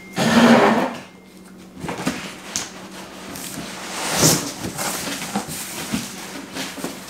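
Cardboard shipping box being opened by hand: a loud scrape of cardboard at the start, then the flaps rustle and knock as they are pulled open and folded back, with another louder scrape about four seconds in.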